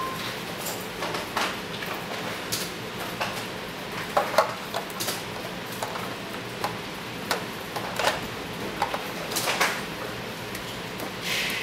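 Bare hard drives being handled and fitted into a multi-bay drive dock: scattered clicks and light knocks of plastic and metal, with a couple of short metallic clinks about four seconds in.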